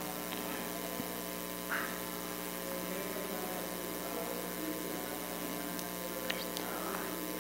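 Steady electrical hum with many overtones over a constant background hiss, with a few faint ticks.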